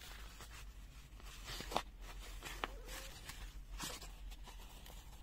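Faint rustling with a few light clicks and taps, three of them a little louder, from hands handling the packaging and accessories.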